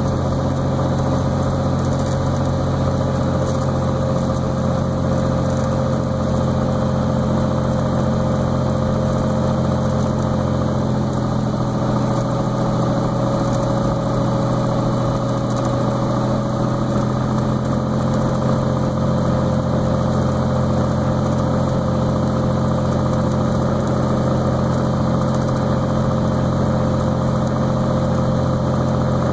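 Cessna Turbo 182T's turbocharged six-cylinder Lycoming engine and propeller droning steadily, heard from inside the cabin during final approach. The pitch shifts slightly partway through.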